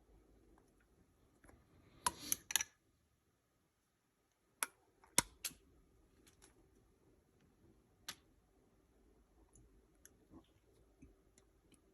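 Scattered light, sharp clicks and taps: a quick cluster of several about two seconds in, then a few single ones spaced out over the following seconds.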